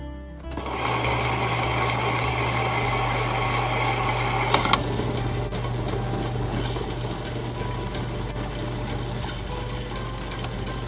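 Electric table-top wet grinder running, its rollers grinding soaked dal and rice into dosa batter. A steady motor hum with a rough grinding rush starts about half a second in, and after a brief clatter about four and a half seconds in the sound turns less hissy.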